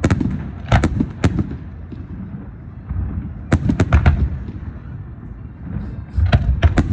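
Fireworks going off in three quick volleys of sharp bangs, near the start, about halfway through, and near the end, over a low rumble.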